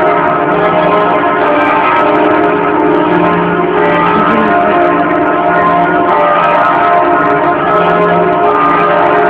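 Kaiser Wilhelm Memorial Church bells ringing together in a continuous full peal, several bells of different pitch overlapping without a pause.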